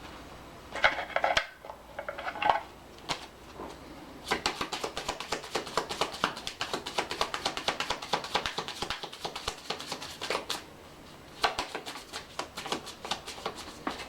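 A deck of tarot cards being shuffled by hand: a couple of short card rustles, then a long run of rapid card flicks and slaps, a pause, and another quick run near the end.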